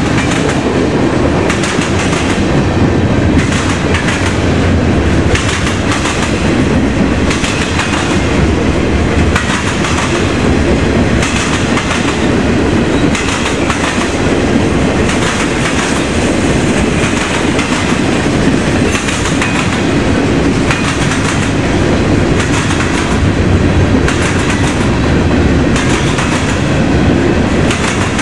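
Mixed freight cars (boxcars, gondolas, covered hoppers) rolling past, their steel wheels banging over a railroad diamond crossing. The clacks come in a continual clatter over a steady rumble.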